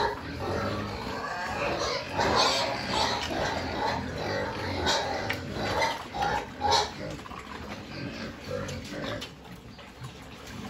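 A group of pigs eating at a round feeder: irregular chomping and snuffling at the feed with the odd grunt, quieter over the last few seconds.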